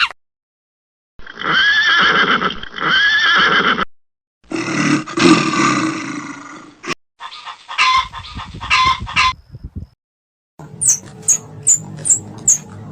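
A series of different animal calls, cut one after another with short silences between: two drawn-out arched calls, then a rougher, lower call, then calls mixed with clicks, and last a row of short, high chirps.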